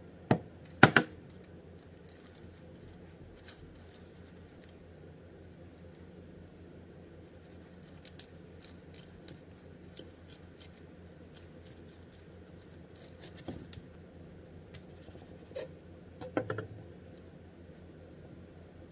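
A chef's knife cutting through a seaweed-wrapped kimbap on a wooden cutting board: the crisp nori crackles in fine ticks as the blade saws through it, with knocks of the blade on the board. Two sharp knocks about a second in are the loudest sounds.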